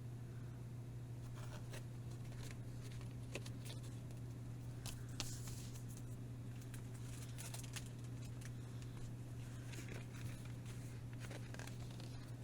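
Packaging being handled: scattered light clicks and taps with a few short rustles and crinkles, over a steady low hum.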